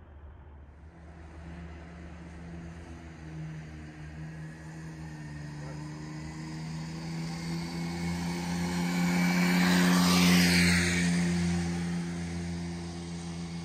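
A passing engine: a steady hum that grows louder, peaks about ten seconds in, then fades away.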